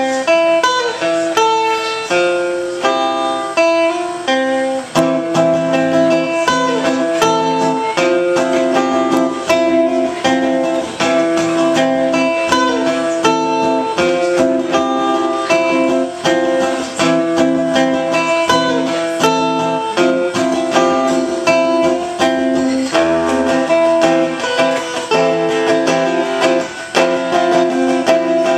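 Two acoustic guitars playing live together, strummed chords in a steady rhythm, with no singing.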